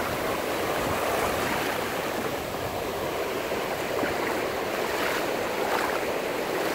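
Shallow sea surf washing over a sandy beach: a steady rush and fizz of foaming water.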